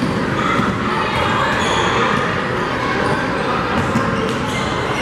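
Basketball being dribbled on a hardwood gym floor during live play, over a steady background of crowd chatter echoing in the gym.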